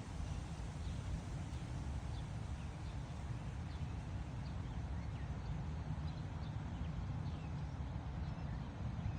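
Gusty wind buffeting the microphone as a steady low rumble, with faint short bird chirps repeating over it.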